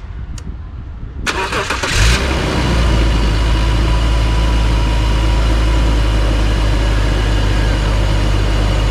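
BMW 330Ci's 3.0-litre straight-six being started: a light click, then the starter cranks for under a second and the engine catches about two seconds in, settling into a steady idle.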